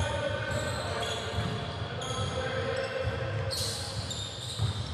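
A basketball being dribbled on a hardwood gym floor during a game, a run of repeated low thumps.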